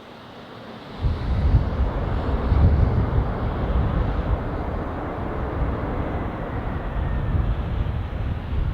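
Jet airliner engine roar, a Delta Boeing 767-400ER, with heavy wind buffeting the microphone. The noise jumps sharply about a second in and stays loud and gusty.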